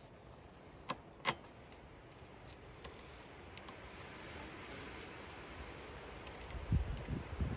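A few sharp metallic clicks and light ticks from hand tools and metal bracket parts being handled on the ATV's steering stem, with two distinct clicks about a second in. Low thumps near the end.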